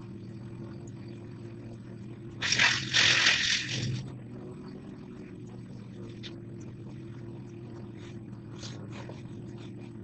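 An engine running steadily at idle, with a loud burst of noise lasting about a second and a half a couple of seconds in.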